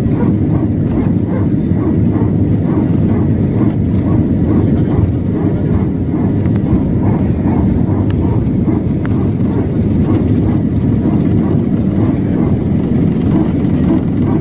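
Airliner jet engines running at takeoff power: a loud, steady, deep rumble with a regular pulsing about twice a second on top, which the uploader calls a strange, scary sound from the engine.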